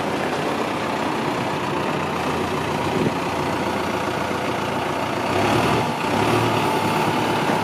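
Caterpillar 428F backhoe loader's diesel engine running steadily, growing a little louder about five seconds in as the front loader bucket is raised.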